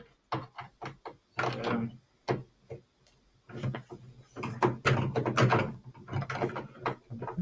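Caster wheel being screwed onto a high-density polyethylene utility cart with a hand screwdriver: an irregular run of clicks, creaks and knocks from the screws, caster and plastic, busier and louder in the second half.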